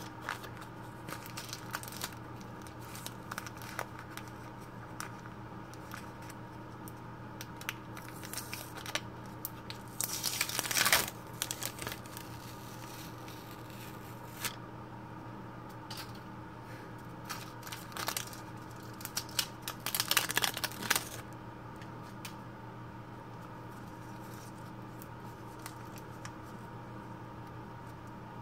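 Paper wrapper of a Band-Aid adhesive bandage crinkled and torn open by fingers: many small crinkles and clicks, with two louder tearing bursts, about ten seconds in and again about twenty seconds in.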